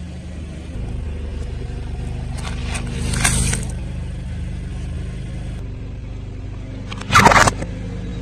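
Car engine running steadily at low speed as a tyre rolls over objects, with two loud crushing bursts as things are squashed under the tyre, one about three seconds in and a sharper one about seven seconds in.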